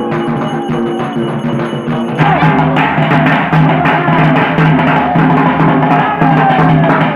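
Live festival drumming on a large barrel drum, even strokes with a held melodic tone over them; it grows louder and brighter about two seconds in.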